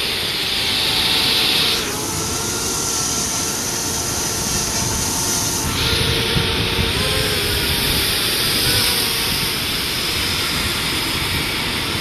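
Steady rush of a waterfall and wind, with the thin whine of a DJI Mavic Air drone's propellers as it lifts off and climbs; the whine wavers in pitch about seven seconds in.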